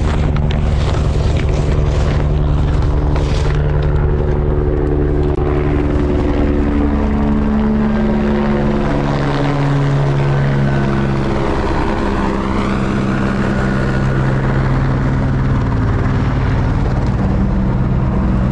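Helicopter flying low overhead, its rotor and engine drone loud and steady, with the pitch sliding lower about halfway through as it passes.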